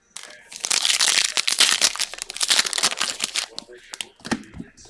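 Foil trading-card pack wrappers crinkling and crackling as they are handled, in a dense run of sharp crackles that thin out over the last second or so.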